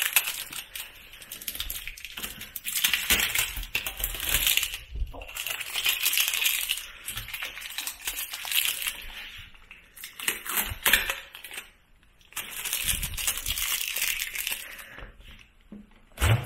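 Crinkling and crackling of packaging being handled and pulled off a new mini fridge, in uneven bursts with short pauses.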